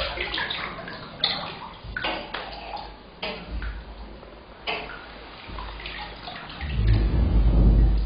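Bathwater in a tub sloshing and lapping around a body, with small splashes and drips throughout, swelling into a louder, deeper surge of moving water near the end.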